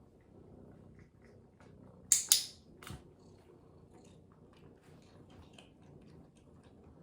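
Two sharp clicks about two seconds in, then a run of small crisp crunches as a cat chews a dry treat.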